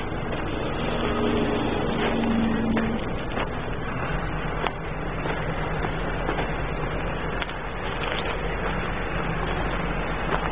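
Steady rumble of vehicle engines and road traffic, with a low hum and a few faint clicks.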